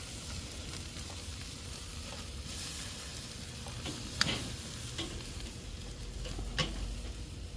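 Pork chops sizzling over charcoal on a Weber kettle grill grate, a steady hiss. Three or four sharp clicks break in during the second half.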